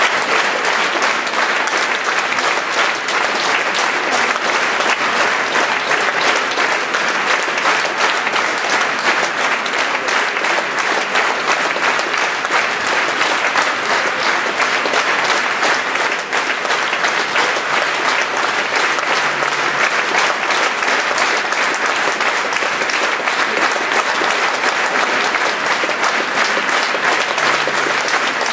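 Theatre audience applauding steadily, a dense continuous clapping of many hands for the dancers' bows at a ballet curtain call.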